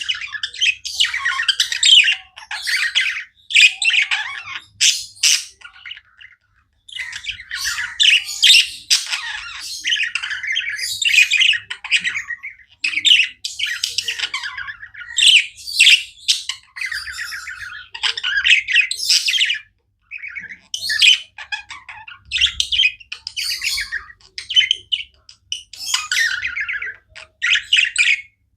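Budgies chirping and chattering almost non-stop in quick runs of short calls, with brief pauses about six seconds in and again near twenty seconds.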